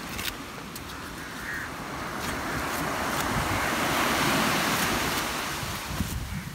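Ocean surf washing on a beach, one long swell building to its loudest a little past the middle and then easing, with wind and a few faint clicks over it.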